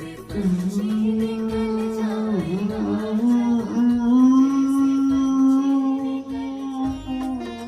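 Devotional bhajan singing: one voice holds a single long note for about seven seconds, dips once and then slides up to a slightly higher pitch, over instrumental accompaniment.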